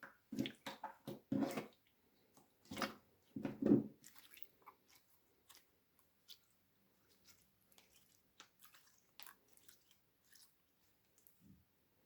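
Slime squelching and popping: dense clusters of wet clicks for about the first four seconds, then only a few faint, scattered clicks.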